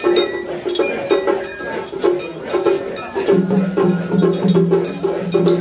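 Music led by rapid, regular percussion strikes with a ringing metallic edge over a mid-pitched melody; a low held note comes in a little past halfway.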